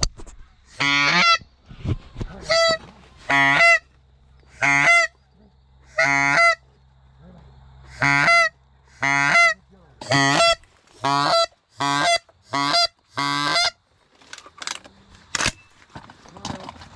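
Canada goose call blown in a string of about a dozen evenly spaced honks, each ending in a sharp break, to coax in a goose; a few short clicks follow near the end.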